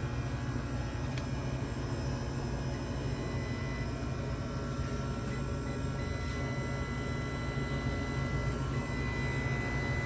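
Walk-in freezer's refrigeration condensing unit running: a steady mechanical hum, with a faint thin high whine over it.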